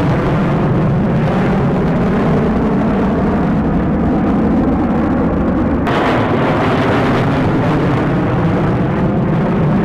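Jet engine noise from a formation of four fighter jets (F-35, F-22, F-15 and F-16) flying overhead: a loud, steady rumble. About six seconds in it turns suddenly hissier and brighter.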